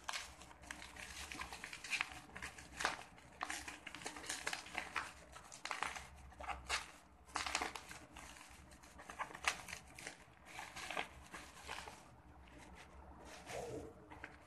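Plastic wrapping and bubble wrap crinkling and rustling in irregular crackles as a gift is unwrapped by hand.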